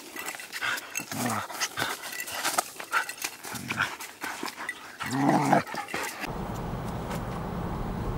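A dog playing with a plastic frisbee, growling briefly about a second in and louder around five seconds in, amid quick clicks and scuffs. About six seconds in it cuts to the steady low hum of a car driving, heard from inside the cabin.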